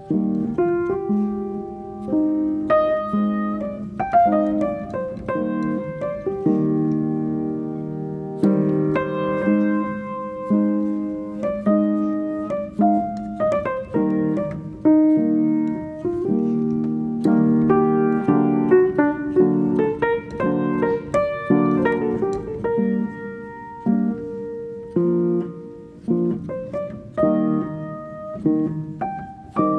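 Background piano music: notes and chords struck and left to ring and fade, one after another.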